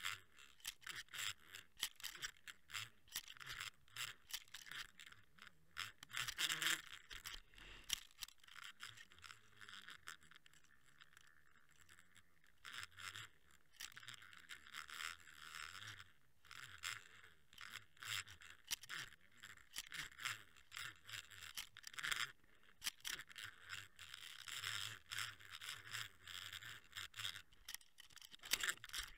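Rapid, irregular clicking and scraping of fishing line and tackle against an underwater camera housing as a lure is worked, with a quieter stretch around the middle.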